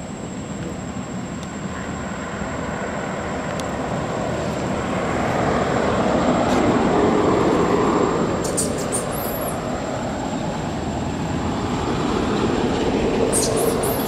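Road vehicle passing: a broad rumble of engine and tyres that swells to a peak about halfway through, eases off, then rises again near the end. Short high squeaks come in two brief clusters, one after the loudest point and one at the very end.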